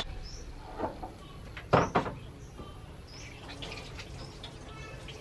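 Small birds chirping now and then, with a couple of knocks of a metal spatula on the wok, the loudest about two seconds in.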